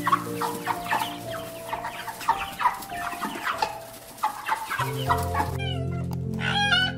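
Domestic hens clucking repeatedly in short calls, over steady background music. The clucking stops about five seconds in, and near the end a few higher calls that bend up and down in pitch take over.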